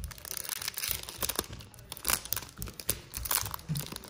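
Foil-lined Topps baseball card pack wrapper crinkling and tearing as it is pulled open by hand, a run of irregular crackles and rustles.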